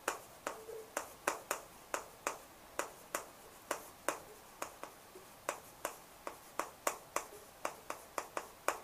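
Chalk tapping on a chalkboard as words are written: a string of sharp, uneven clicks, about three a second.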